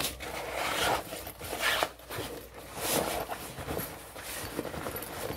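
Rustling and rubbing of a synthetic-leather bag with a waterproof lining as it is handled and shifted across a tabletop, in a few separate bursts.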